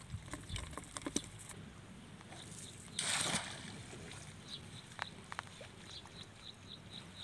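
Shallow muddy water sloshing as a cast net is gathered in by hand, with a short splash about three seconds in.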